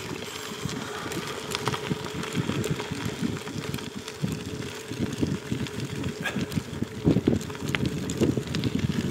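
Wind buffeting the microphone of a camera riding along on a gravel bike, with a constant rumble of tyres rolling over a gravel track and scattered small ticks and crunches.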